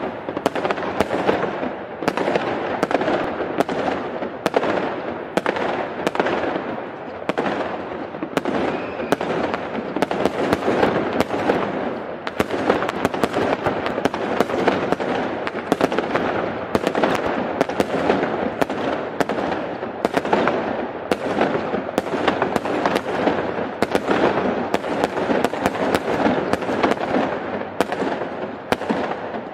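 Aerial firework shells bursting in a rapid, continuous barrage: many sharp bangs over a dense crackle.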